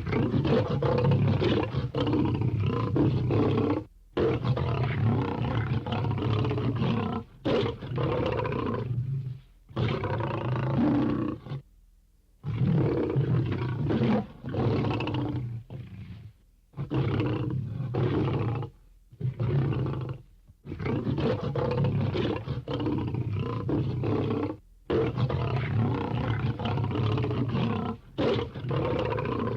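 Lion roaring and growling sound effects: a run of long, loud roars one after another, broken by short pauses.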